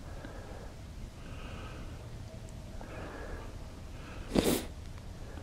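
A person sniffing once, sharply, about four seconds in, over a low steady background.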